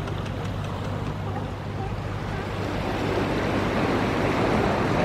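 Sea water lapping and splashing, with wind on the microphone and a steady low hum underneath; the water noise grows louder about three seconds in.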